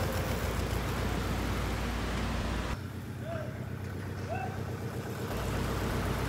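Steady drone of a distant engine from the slab-pour site's machinery, under a low rumble and hiss. The low rumble drops away for about two and a half seconds in the middle, when two faint short chirps are heard.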